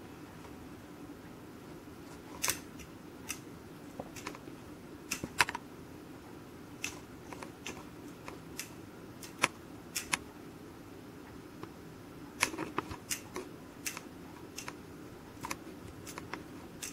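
Irregular small plastic clicks and taps as kittens bat at a camera's lens cover, some singly and some in quick clusters, over a faint steady hiss.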